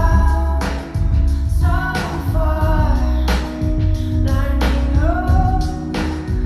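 Indie pop song with a female voice singing over a heavy bass line and guitar, in a panned 8D binaural mix with boosted bass.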